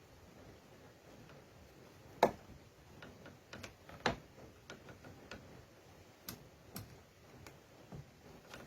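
Scattered light clicks and taps, with two sharper knocks about two and four seconds in.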